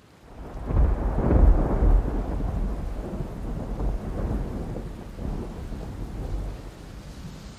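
A long roll of thunder that swells in about a second in and slowly dies away, over a steady hiss of rain.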